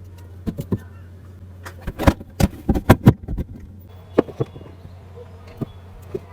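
Irregular sharp clicks and knocks, a dense run of louder ones about two to three and a half seconds in, over a steady low hum.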